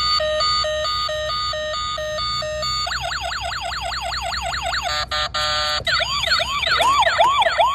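Toy police car's electronic siren cycling through its patterns. It starts as a stepped hi-lo two-tone, switches to a fast yelp about three seconds in, gives a brief steady buzzing tone about five seconds in, and ends with slower rising-and-falling wails.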